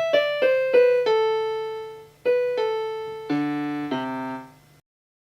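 Casio SA-76 electronic keyboard's piano voice playing a short phrase of single notes, one held, ending on two chords, heard through a JBL Clip 2 Bluetooth speaker plugged into the keyboard's headphone jack. The sound cuts off near the end.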